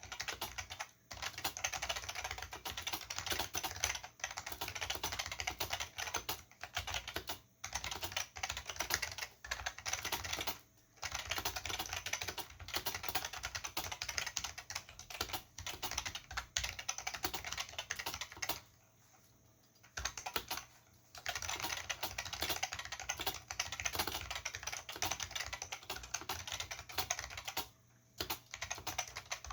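Continuous fast typing on a vintage Olivetti M15 keyboard with Futaba MA mechanical switches and PBT keycaps: a dense stream of key clicks with a few brief pauses and one pause of about two seconds roughly two-thirds of the way through.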